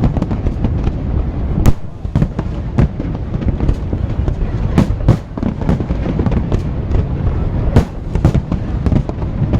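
Aerial fireworks going off: many sharp bangs in quick, irregular succession over a continuous low rumble.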